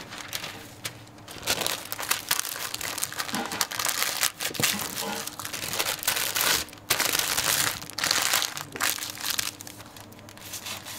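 Paper sandwich wrapper crinkling and rustling as a rolled wrap is folded into it by hand, in repeated bursts.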